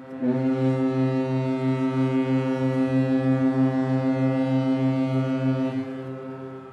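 A ship's horn sounding one long, steady blast with a slight throb, fading away over the last second or so.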